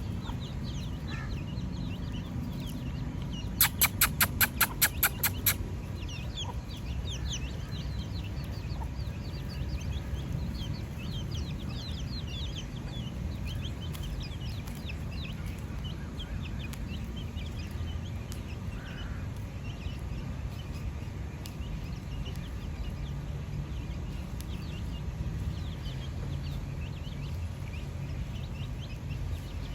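Chickens clucking, with many short, high chirps throughout over a steady low rumble. About four seconds in comes a quick run of about ten loud, sharp pulses lasting about two seconds.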